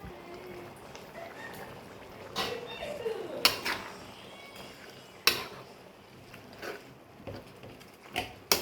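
A metal spoon or ladle clinking against a cooking pot several times, sharp separate knocks with two close together near the end.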